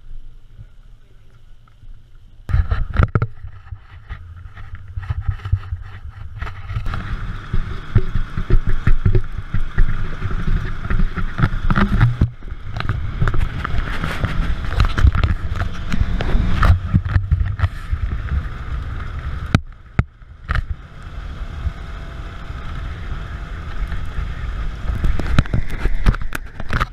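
Polaris RZR side-by-side driving fast over a dirt track, its engine running under a heavy, uneven rumble of wind buffeting and jolting on a cab-mounted microphone. The rumble starts abruptly a couple of seconds in, after a quieter stretch of outdoor ambience.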